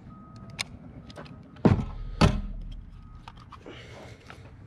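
Two loud metallic clunks about half a second apart as the Black Aces Tactical FD12 bullpup shotgun is handled, with lighter clicks from the gun around them.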